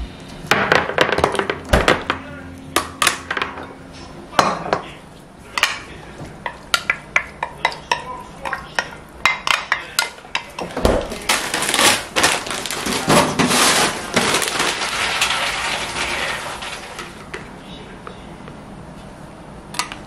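Wooden spatula scraping and knocking against a plastic food container and a nonstick wok as stir-fried octopus is scraped into the pan, with many sharp clicks and clinks. About halfway through comes a longer stretch of continuous scraping.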